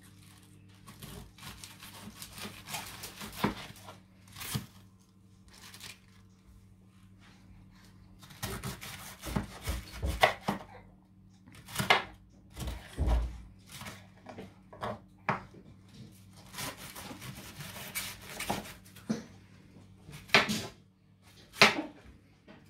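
Kitchen knife slicing a head of white cabbage on a wooden cutting board: irregular runs of cutting strokes with pauses between them, and two sharper knocks of the blade on the board near the end.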